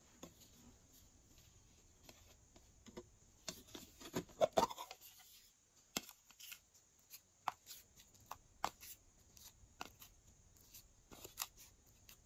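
Small plastic case handled close up: a cluster of louder plastic clicks and rattles about four seconds in, then scattered light clicks and scratches as fingertips pick glittery flower cutouts out of the case.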